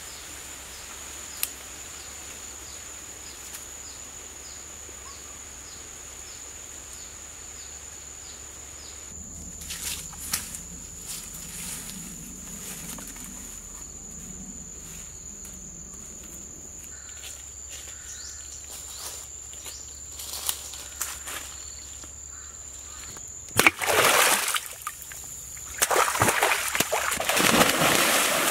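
A steady high tone with scattered soft rustles and knocks, then a loud splash and heavy, continuous splashing of stream water in the last few seconds as a person plunges in among swimming ducks.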